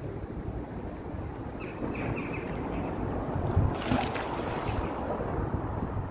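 Wind buffeting the microphone with a steady low rumble, and a brief louder burst of noise about four seconds in.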